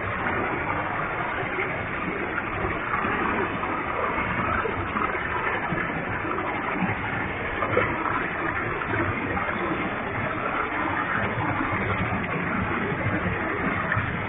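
Waterfall with a heavy flow of water, a steady, even rush of falling and splashing water.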